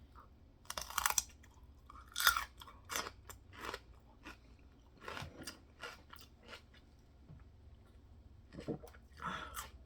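Open-mouth chewing of a mouthful of mixed foods including peanut butter and celery: wet smacks and clicks coming irregularly. The loudest come about one and two seconds in, and another cluster comes near the end.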